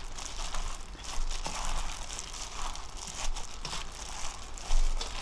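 Hands in thin plastic gloves tossing and squeezing boiled, seasoned bracken fern stems in a stainless steel bowl: irregular crinkling of the gloves and rustling of the wet stems, with a louder bump near the end.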